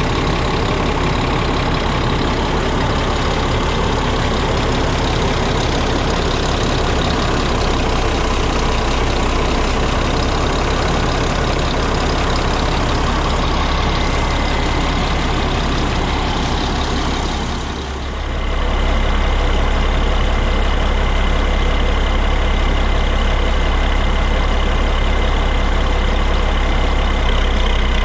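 Leitner LH500 snow groomer's MAN D2866 inline-six diesel idling steadily, heard close at the engine bay and exhaust. The level dips briefly about two-thirds of the way through.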